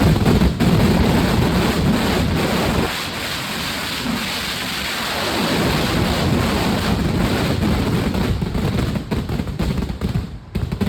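Dense Kerala vedikkettu fireworks barrage: rapid overlapping bangs merging into a continuous thunder-like rumble. It eases slightly about three seconds in, builds again, then thins out near the end.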